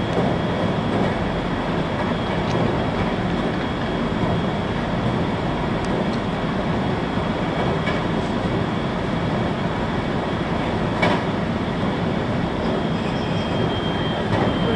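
Cabin running noise of a 521-series electric multiple unit under way: a steady rumble of wheels on rail, with a thin high tone held throughout and a single sharp click about eleven seconds in.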